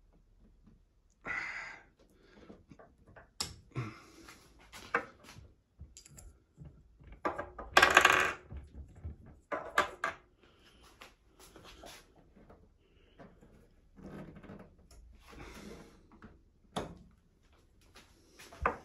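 Metal-capped plastic cooker control knobs clicking and clattering as they are pulled off the range and set down one by one on a stone worktop. A longer, louder clatter comes about eight seconds in.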